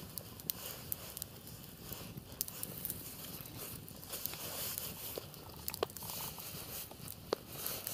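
Wood campfire crackling, with scattered sharp pops, the loudest near the end.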